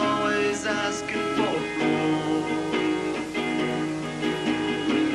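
Live band instrumental passage led by guitar, with sustained notes over steady chords and a falling pitch bend about a second and a half in.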